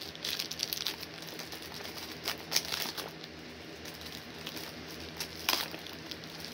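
Packaged soap bars being handled: crinkling wrappers and light clicks of their boxes, with sharper crinkles about two and a half and five and a half seconds in.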